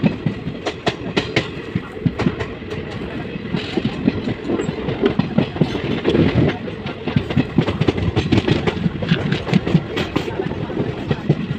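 Indian Railways passenger train running at speed, heard from on board: a steady rumble of wheels on rails with many sharp, irregular clicks as the wheels pass over rail joints.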